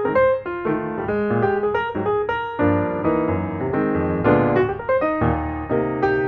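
Background piano music, a run of notes with chords underneath.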